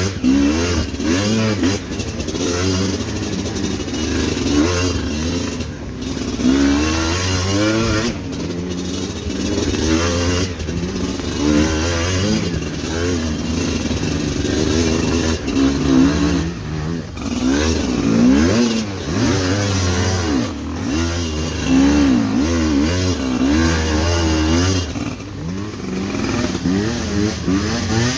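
Motorcycle engine revving up and down over and over, its pitch rising and falling every second or two as it labours up a steep, rocky, rain-slicked trail.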